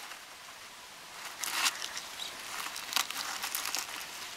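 Fingers picking at and breaking open a cracked quail eggshell, giving a scatter of small crackles and crunches. The louder ones come about a second and a half in and again about three seconds in.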